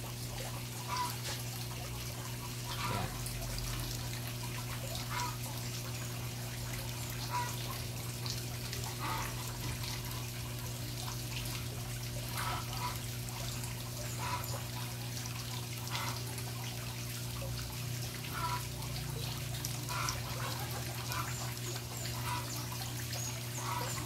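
Water trickling and splashing steadily from the pump-fed pipes of an aquaponics system into the pond, with small irregular splashes and a steady low hum underneath.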